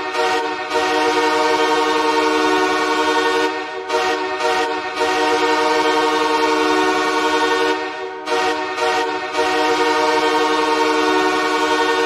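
Los Angeles Kings goal horn blasting, a loud chord of several steady tones held for about twelve seconds with a few short dips. The recording is dry, without reverb.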